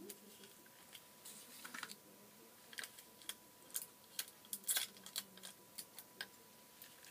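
Clear adhesive tape pulled off a desk dispenser and torn off to tape a cardboard tube: a run of small crackles and sharp clicks, loudest about two-thirds of the way through.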